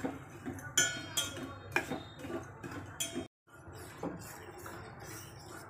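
Metal spoon scraping and clinking against a stainless steel pot while stirring lumps of jaggery in a little water to dissolve them. Several sharp clinks come in the first three seconds; after a brief break just past halfway, the stirring is softer, with one more clink.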